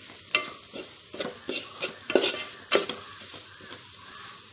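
Wooden spatula stirring and scraping sautéed onions and chilli powder around a metal pan in irregular strokes, over a light sizzle of the frying oil.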